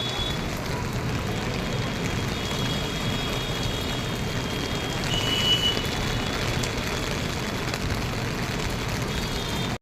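Steady rushing noise of the swollen Tawi River in flood, even and low, with a faint high tone about five seconds in.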